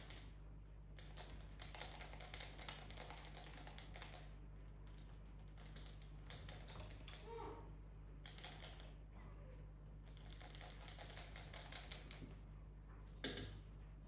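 Faint, irregular clicking and scratching in quick clusters from the pets shifting on their cushioned beds and at a hanging rope toy, with one louder knock about a second before the end.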